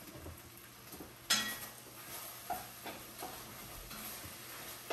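Ground beef sizzling as it browns in a frying pan while being stirred. A sharp clank of the utensil against the pan comes about a second in, followed by a few lighter knocks.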